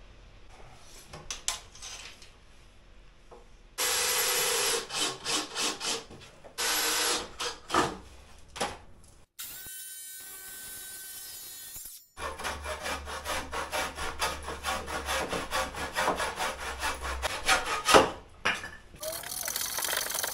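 Saw cutting softwood timber in several separate spells of quick, even back-and-forth strokes, the longest in the second half. A steadier whirring noise with a thin whine comes in briefly in the middle.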